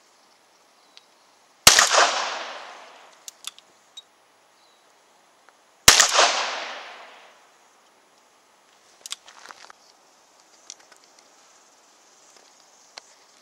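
Two revolver shots about four seconds apart, each a sharp crack followed by a long echo fading over about a second and a half. Faint clicks are heard between and after the shots.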